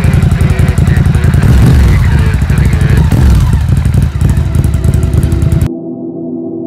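Ducati GT1000's air-cooled L-twin running through a Staintune exhaust, revs rising and falling as the bike pulls away. About three-quarters of the way through it cuts off suddenly into a steady, gong-like music drone.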